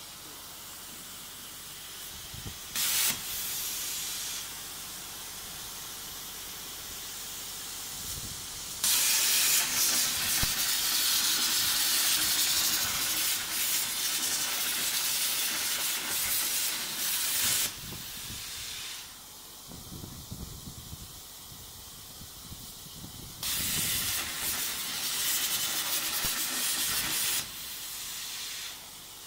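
CNC plasma cutter torch cutting sheet steel: the arc gives a loud, harsh hiss, once from about 9 to 18 seconds in and again from about 23 to 27 seconds, with a short burst near 3 seconds. A quieter steady hiss runs in between.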